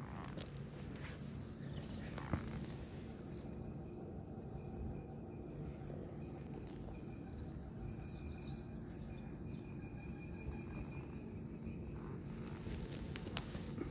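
Outdoor ambience: a steady low background rumble, with faint bird chirps through the middle and a single sharp click a little over two seconds in.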